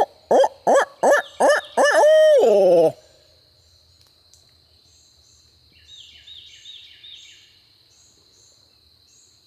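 A loud barred owl hoot, "who-cooks-for-you" style, made close by as a turkey hunter's locator call to make a gobbler shock-gobble: several short hooting notes, then a long drawn-out one that falls off, ending about three seconds in. Faint, distant calls follow about six seconds in, which the hunters take as a gobbler answering.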